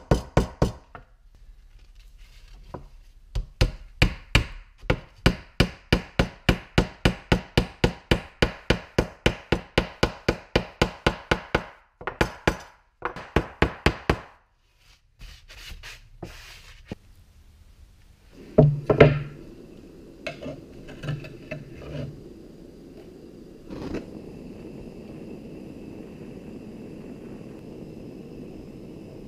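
A hammer taps a small wooden block to drive thin metal strips into saw cuts in a wooden slab, at a steady rhythm of about three strikes a second, with a few more taps after a short pause. Later come a few loud knocks, then a gas blowtorch flame hissing steadily.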